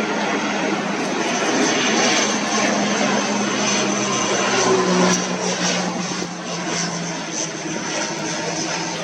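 Aircraft engines running loud as a plane passes close by, swelling to their loudest about five seconds in and then easing off.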